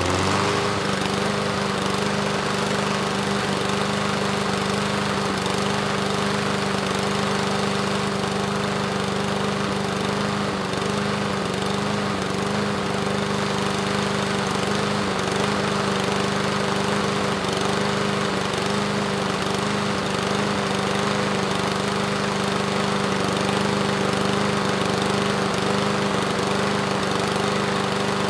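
Pull-start lawn mower's small petrol engine running at a steady speed, an even rumble.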